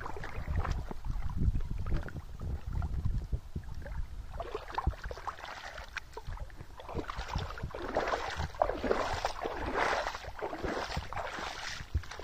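Irrigation water flowing and splashing along the furrows of a field, louder and in uneven surges from about four seconds in. Wind rumbles on the microphone in the first few seconds.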